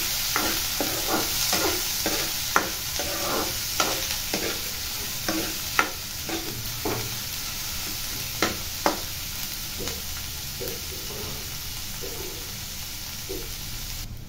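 Chopped onion, green chillies and garlic sizzling in hot mustard oil in a kadhai, frying toward golden, with a spatula scraping and knocking against the pan as it stirs. The stirring strokes come often at first and thin out in the second half; the sizzle cuts off suddenly just before the end.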